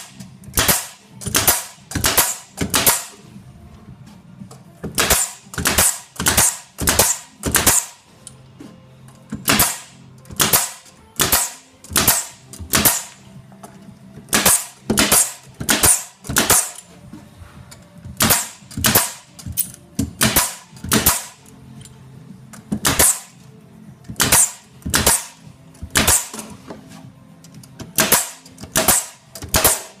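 Pneumatic nail gun firing nails into the corner joints of a wooden hive box. Dozens of sharp shots, mostly in quick runs of three or four with short pauses between.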